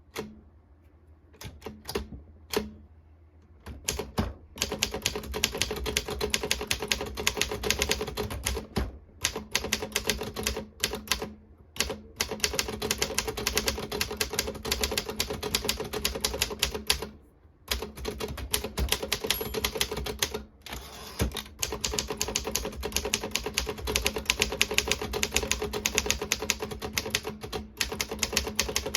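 Optima Elite 3 manual typewriter being typed on. A few separate key strikes come first, then fast, steady typing from about four seconds in, with a few short pauses.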